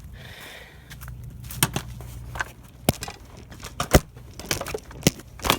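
Irregular sharp ticks and clicks from a Tomos Streetmate moped's engine, with the spark plug and plug cap fitted: the ticking noise whose cause the owner is trying to find. The ticks come unevenly, about nine of them, the loudest about four seconds in, over a steady low hum.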